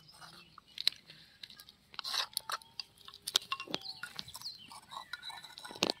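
Spoons scraping and tapping against clay pots as spices and paste are scooped into a clay bowl: a run of irregular small clicks and knocks, with a stretch of scraping about two seconds in.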